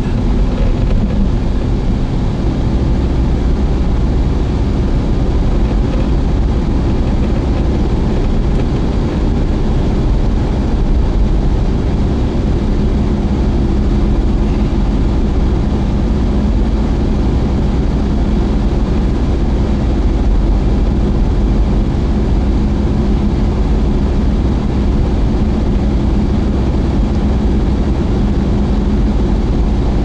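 A car driving at a steady speed, heard from inside the cabin: an even rumble of engine and tyre road noise with a low hum.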